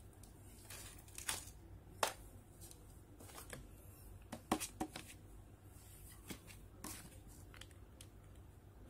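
Sporadic light clicks and taps from hands handling a smartphone and its small parts during reassembly, about half a dozen sharp ones spread out, over a faint steady hum.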